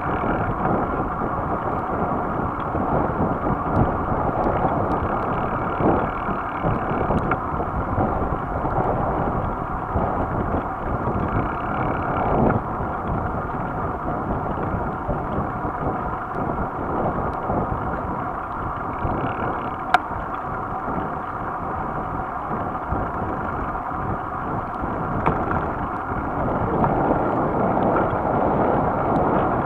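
Wind rushing over the microphone of a moving bicycle, mixed with tyre-on-asphalt rumble, with a few sharp knocks scattered through.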